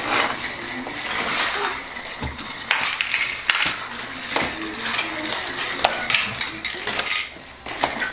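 Plastic Trackmaster toy trains and track pieces clattering and clicking against each other and the table as they are handled: an irregular run of sharp knocks and rattles.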